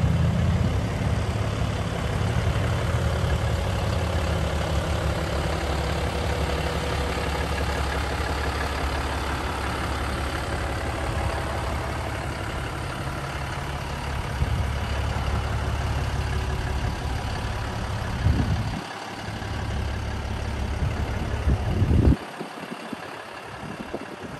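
Cummins 6.7-litre inline-six turbo diesel idling with a steady low rumble. The rumble dips briefly and then drops away sharply near the end.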